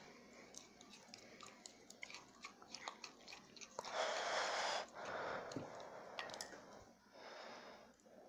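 Homemade slime being mixed: many small wet, sticky clicks and squelches, with a few longer rushes of noise, the loudest about four seconds in.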